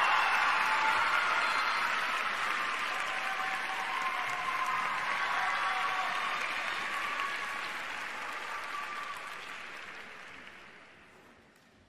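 Arena crowd applauding, the applause steadily dying away to near quiet over about ten seconds.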